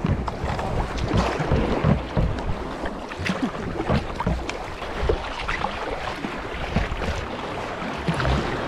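Sea water lapping and splashing against a sea kayak's hull and the nearby rocks, a steady wash of small irregular splashes, with wind buffeting the microphone.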